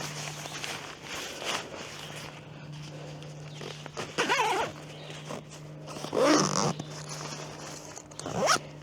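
Nylon tent bag and rain fly being handled and stuffed, rustling, with three short squeaky sounds that bend in pitch about four, six and eight and a half seconds in, over a steady low hum.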